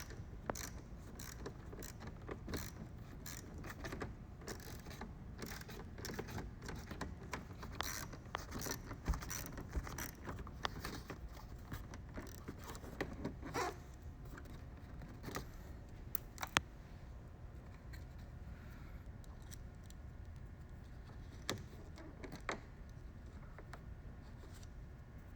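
Scattered small clicks and light metallic rattles of hand tools and fasteners as the car's rear bumper screws and clips are worked loose, thinning out in the last third, over a steady low hum.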